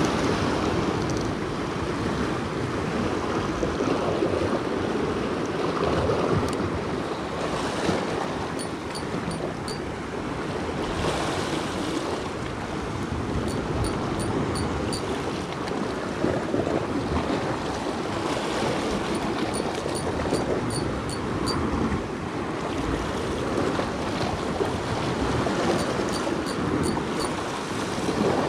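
Sea surf washing and breaking over shoreline rocks in a steady wash. Short runs of faint, rapid ticks come and go a few times.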